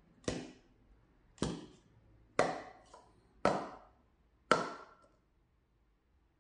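Speed Stacks plastic sport-stacking cups set down one at a time as a pyramid is built up, giving five sharp plastic clacks about a second apart.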